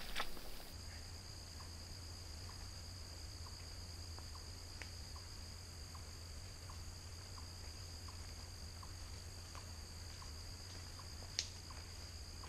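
Steady high-pitched insect chorus, like crickets, with faint regular ticks about twice a second and a low steady rumble underneath; a single sharp click sounds near the end.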